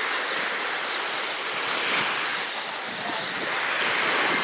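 Sea waves breaking and washing onto a sandy beach, a steady rushing that swells about halfway through and again near the end.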